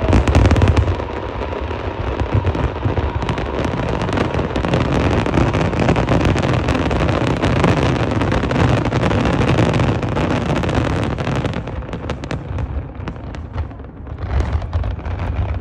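Aerial fireworks display: a dense, continuous barrage of shell bursts and rapid pops for about eleven seconds, thinning to scattered bursts before picking up again near the end.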